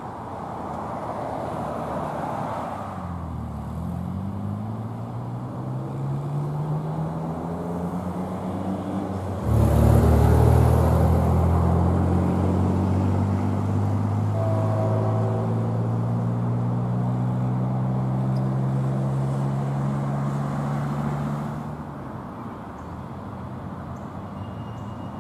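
Diesel freight locomotives approaching, their engines running under power with a deep pitched drone. The engine note rises over several seconds, gets suddenly much louder about ten seconds in and holds steady, then falls away a few seconds before the end.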